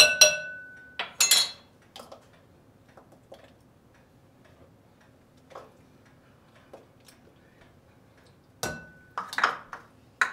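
Spoon clinking and scraping against a flour canister and measuring cup while flour is scooped and measured. A few ringing clinks and scrapes come at the start, faint light taps fill the middle, and another ringing clink with scraping follows near the end.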